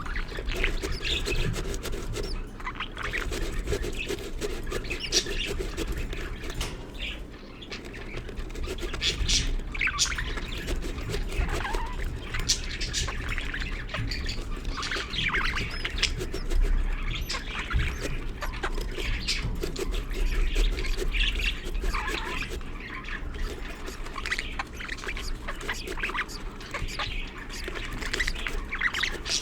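Budgerigars chirping and squawking in continuous chatter, many short scratchy calls close together, over a low steady hum.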